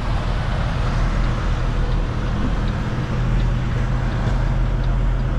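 Kenworth semi-truck's diesel engine running at low speed, heard from inside the cab as a steady low hum.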